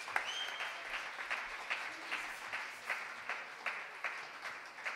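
Audience applauding between songs. The clapping thins out to a few steady claps, about two or three a second.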